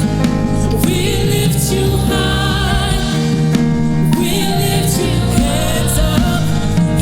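Gospel worship song: sung vocals with wavering, held notes over sustained instrumental chords and bass.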